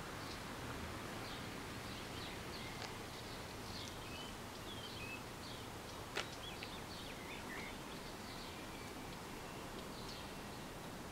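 Small birds chirping intermittently, with short calls and little pitch glides, over steady outdoor background noise; a single brief sharp click about six seconds in.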